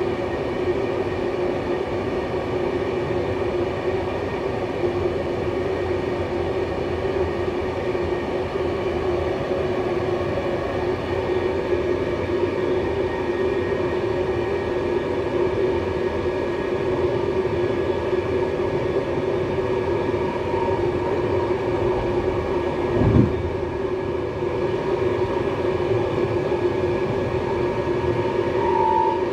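Moving intercity train heard from inside its last passenger car: steady rolling noise of the wheels on the rails with a constant hum. Late on there is a single short thump with a falling tone.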